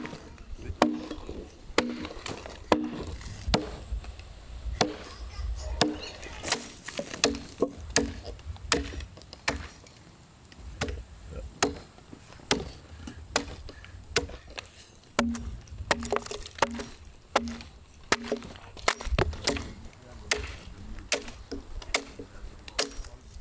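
Hand tool chopping into green wood: a long, steady series of sharp blows, about one or two a second, some with a short low ring after the strike.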